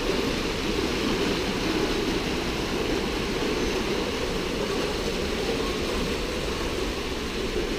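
Steady rush of running water from an indoor spring pool and creek flowing over rocks.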